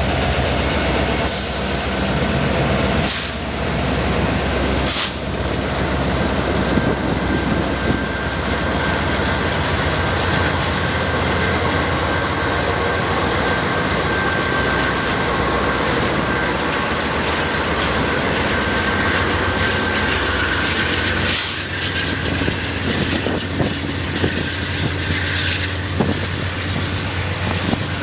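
CN diesel freight train passing close by: the trailing locomotives rumble past first, then a string of covered hoppers and tank cars rolls by with steady wheel-on-rail noise. A few sharp knocks come from the cars, and a thin high squeal runs through the middle.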